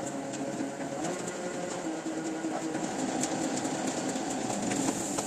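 Printing press machinery running steadily: a continuous mechanical running noise with light, irregular ticks.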